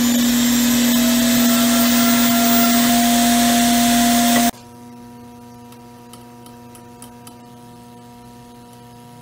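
A flex-shaft rotary tool in a small router base runs at speed with a loud steady whine, routing a pocket in the fretboard for a pearl inlay. About four and a half seconds in it cuts off abruptly, leaving a much quieter steady hum.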